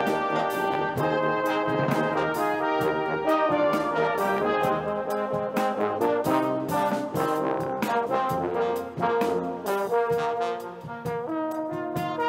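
Salvation Army brass band of cornets, horns and trombones playing full, sustained chords that shift every second or so, with frequent sharp percussion hits through them.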